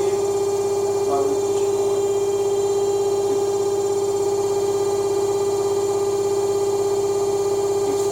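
Electrolux LSE09 washer-dryer on its spin cycle, giving off a steady, unchanging hum with one strong tone and fainter overtones: the excessive spin noise that the owner is showing as a fault.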